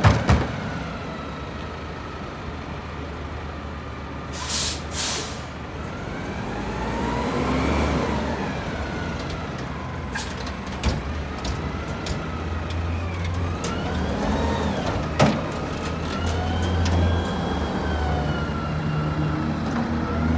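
Mack LEU front-loader garbage truck's diesel engine running and revving, with a hydraulic whine that rises and falls as the front forks work the McNeilus carry can. Two short air hisses about four to five seconds in, typical of the air brakes being released.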